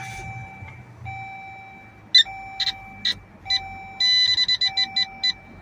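Dashboard warning chimes in a 2019 Dodge Journey at start-up: a lower chime tone repeating about once a second, with short high beeps joining in and turning into a rapid run of beeps near the end.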